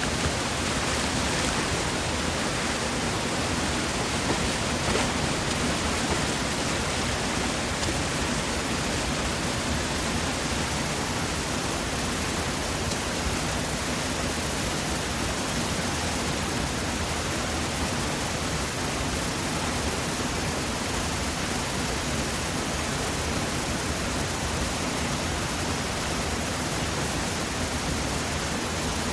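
Waterfall pouring into a rocky pool: a steady, even rush of water.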